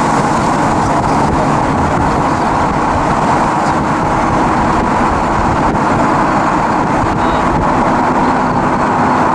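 Steady road and wind noise of a car in motion, an even rushing sound with no changes.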